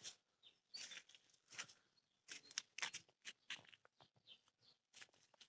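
Near silence broken by faint, scattered gritty scuffs and crunches: slide sandals stepping on grit-strewn concrete and dirt, at an irregular pace.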